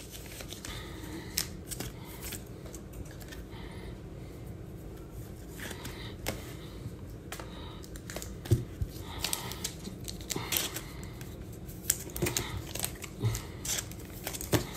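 Trading cards and clear plastic card sleeves being handled: soft crinkling, rustling and small clicks as a card is slid into its sleeve.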